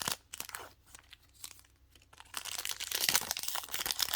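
Foil booster-pack wrapper crinkling as Pokémon trading cards are handled: scattered short crackles at first, then a denser stretch of crinkling from about two seconds in.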